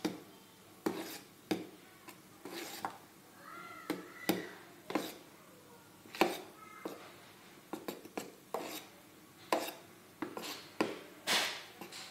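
A metal spoon stirring cake batter in a metal bowl, clinking and scraping against the sides in irregular knocks, one or two a second.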